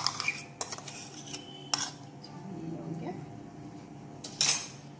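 A spoon knocking and scraping against a mixer-grinder jar while the last of the cake batter is scraped out into a glass bowl: a few sharp clinks, the loudest near the end.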